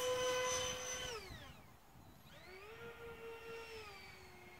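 RC Me 262 model jet's motor, a steady whine that is throttled back about a second in, its pitch falling away. A fainter whine returns at part throttle a little later and eases lower near the end.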